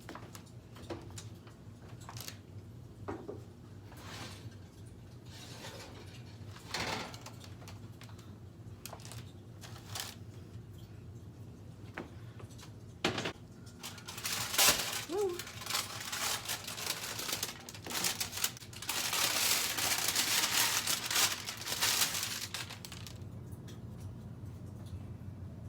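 Scattered clicks and light knocks of objects being handled, then a louder stretch of rustling and handling noise of several seconds in the second half.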